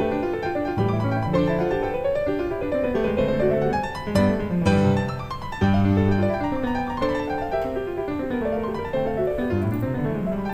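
Background piano music: a solo piano playing runs of notes that climb and fall.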